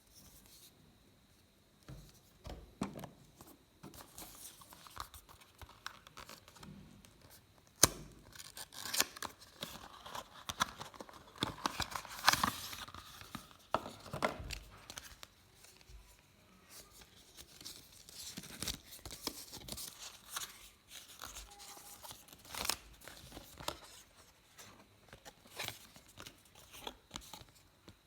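Phone box and packaging being handled: scattered clicks and taps with stretches of rustling and tearing of paper or plastic. The sharpest click comes about eight seconds in, and the busiest rustling follows just after it.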